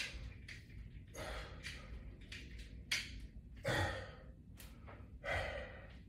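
A man breathing hard through a set of resistance-band chest expansions, with a forceful exhale on each pull, several of them about a second apart.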